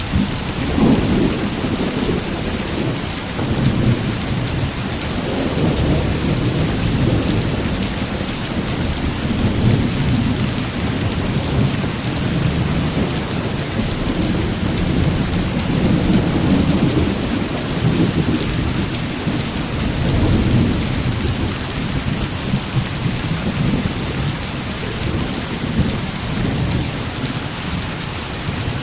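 Heavy rain falling steadily, with low rolling thunder rumbling in repeated swells.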